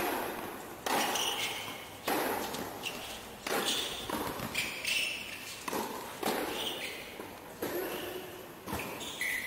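Tennis balls struck by rackets, and bouncing on a hard court, in a doubles rally that opens with a serve. There are about a dozen sharp pops, roughly one a second, each with a short echo.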